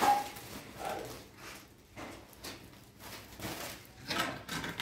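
Handling noises: a bag rustling and wooden boards being shifted, knocking and scraping on a concrete floor, in a string of short, irregular sounds.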